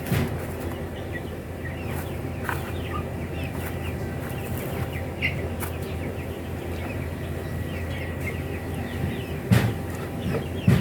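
Chickens calling faintly in short, scattered cheeps and clucks over a steady low hum, with two sharp knocks near the end.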